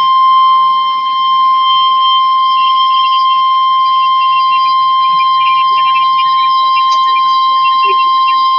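Emergency Alert System attention signal: a loud, steady single alarm tone of about 1050 Hz, the NOAA Weather Radio warning alarm tone. It announces that an urgent weather warning, here a tornado warning, is about to be read.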